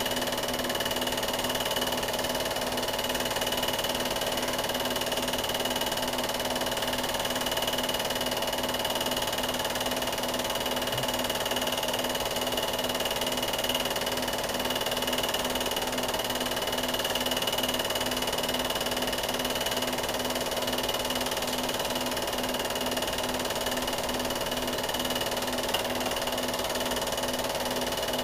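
Steady mechanical whir with a constant hum and a thin high whine, unchanging throughout, with no distinct events.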